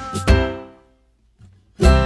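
Background music: notes ring away to a short silence about a second in, and the music starts again near the end.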